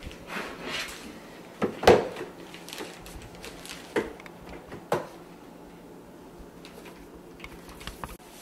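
Kitchen handling sounds: a few sharp knocks and clacks as things are put down and handled on the counter, the loudest about two seconds in, with light rustling in between.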